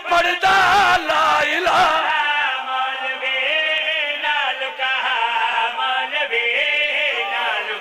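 A male voice chanting a Shia devotional qaseeda in a melodic, sung style, with long held notes that waver in pitch. The first two seconds are rougher and noisier.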